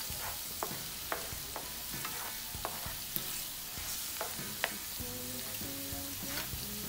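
Ginger, garlic and spring onions sizzling in hot oil in a non-stick frying pan, with a spatula clicking and scraping against the pan as they are stirred. The clicks stop after about four and a half seconds, leaving the steady sizzle.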